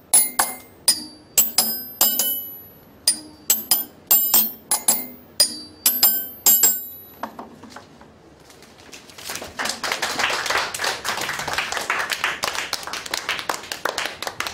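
Homemade xylophone of steel combination wrenches struck with a wooden mallet, playing a quick tune of single, brightly ringing metallic notes for about seven seconds. After a short pause, a roomful of children clap.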